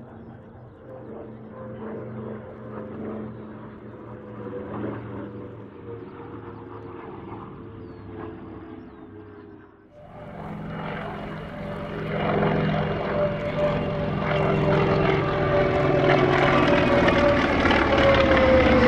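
Pratt & Whitney R-1830 Twin Wasp radial piston engines of CAC Boomerang fighters flying past, a steady propeller drone. After a brief dip about ten seconds in, it grows steadily louder as an aircraft closes in, and its pitch falls near the end as it passes.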